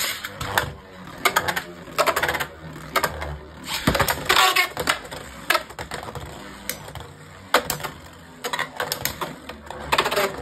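Two Beyblade X spinning tops, Dransword 3-60 Flat and Krabeus, battling in a plastic stadium, heard as irregular bursts of sharp plastic-and-metal clacks as they strike each other and the stadium walls.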